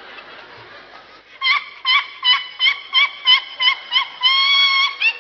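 A woman's high-pitched voice crying out in short, even shrieks, about three a second, each with a little upward hook in pitch. They end in one long held shriek near the end.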